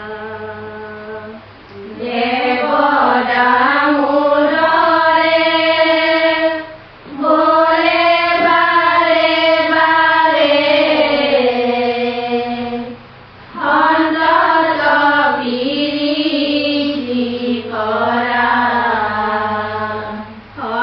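A group of voices singing an Assamese dihanam, a devotional chant, in unison. Long held melodic phrases break off for short pauses about 2, 7 and 13 seconds in.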